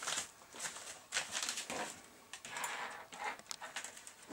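Rustling and scattered light clicks of test leads and banana plugs being handled, irregular and on and off throughout.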